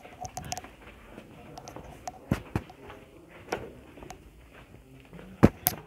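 Footsteps in a tunnel: a few scattered steps and scuffs, the loudest near the end, over a faint murmur of voices.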